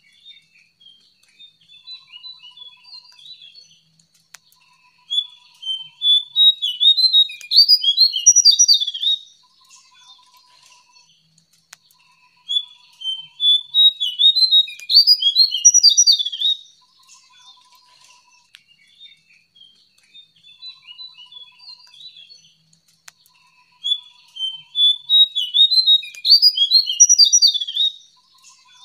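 A jongkangan songbird singing: three loud bursts of rapid, varied, high notes, each about four seconds long and about nine seconds apart, with quieter twittering between them. A faint steady high whine runs underneath.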